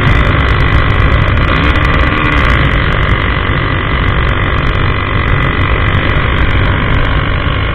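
Honda CG 150's single-cylinder four-stroke engine running very loud and steady through its modified dual exhaust, with the handlebar-controlled exhaust valve set open.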